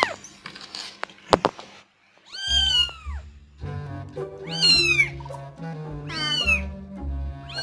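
Newborn kitten mewing repeatedly, high cries that fall in pitch, one every second or two: the crying of a kitten left outside the nest, away from its mother. Background music with sustained notes plays underneath, with a single sharp click a little over a second in.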